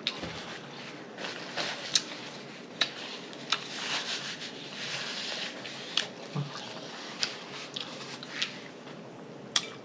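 Close-miked eating: wet chewing and lip smacking of soft food, with frequent sharp clicks and a denser stretch of chewing about midway.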